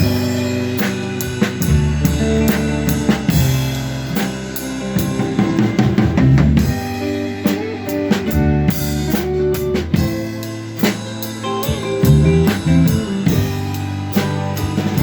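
Live band playing an instrumental passage of a rock song. A drum kit keeps time on bass drum and snare, and a guitar plays lines with bent notes over bass and chords.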